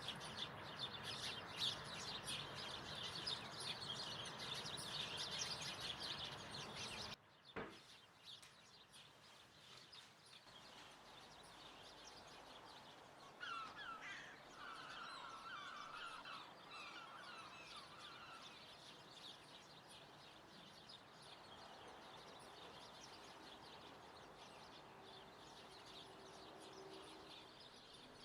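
Birds chirping: a dense chorus of short, high chirps for about seven seconds, then an abrupt cut to a quieter background with a short warbling call near the middle.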